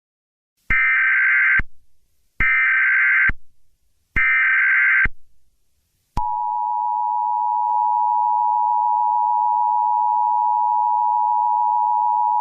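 Emergency Alert System broadcast opening: three short bursts of SAME header data tones, about a second each. About six seconds in, the steady two-tone EAS attention signal starts and holds.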